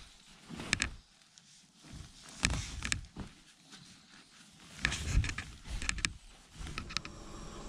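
Rustling of a sleeping bag and blanket being handled and spread over an air mattress in a nylon tent, with soft thumps and crinkles in short bursts every second or two.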